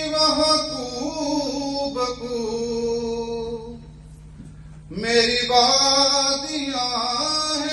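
A man singing a slow Urdu song solo into a handheld microphone, holding long, wavering notes. About four seconds in he breaks off for a breath, then comes back in on a strong note about a second later.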